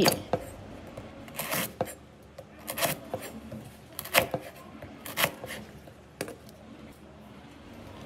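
Chef's knife slicing through a lemongrass stalk onto a wooden cutting board: a series of short, crisp cuts about one a second.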